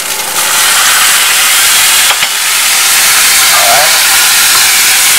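White vinegar poured into a saucepan of diced red peppers frying in hot oil, setting off a loud, steady sizzling hiss of steam that starts abruptly about half a second in. A single light knock comes about two seconds in.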